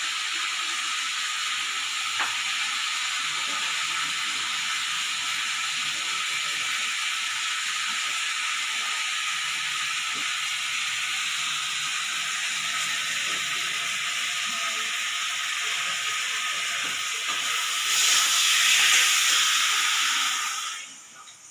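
Aluminium pressure cooker on a gas stove venting steam through its weight valve with a steady hiss, a sign the cooker is up to pressure. The hiss grows louder about eighteen seconds in and then cuts off sharply near the end.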